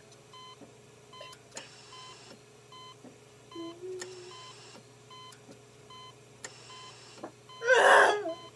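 Faint electronic beeping, a steady tone pattern that keeps switching on and off at even spacing. A short loud burst comes near the end.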